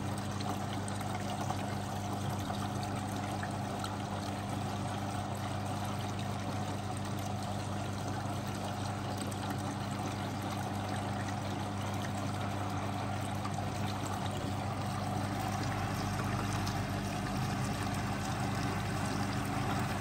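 Beko WMB81341LS washing machine filling: water running steadily into the machine over a steady low hum. With its pressure hose disconnected the machine reads as empty and keeps taking in water.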